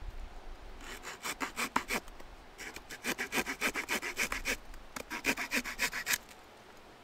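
Swiss Army knife reamer being twisted back and forth into a wooden stick to bore a hole. It makes rapid rasping, scraping strokes in three bouts with short pauses between them.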